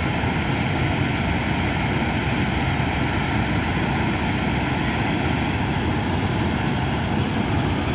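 Kartar combine harvester and Farmtrac tractor running together in a paddy field: a steady, unbroken engine and machinery drone.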